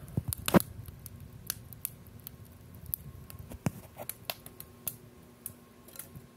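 Douglas fir burning at full burn in a batch box rocket mass heater's firebox, crackling with irregular sharp pops. The loudest pop comes about half a second in.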